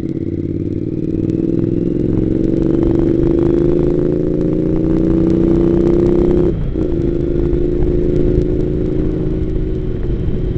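Triumph America parallel-twin motorcycle engine pulling away and accelerating, its pitch rising steadily for about six seconds, then dropping sharply and running on steadily, heard through a helmet-mounted camera with low wind rumble.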